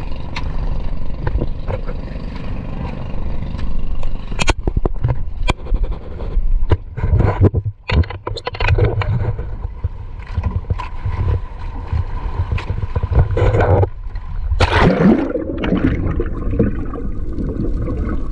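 Small fishing boat's engine running steadily, with scattered knocks and scrapes against the boat and a louder rush of noise about fifteen seconds in.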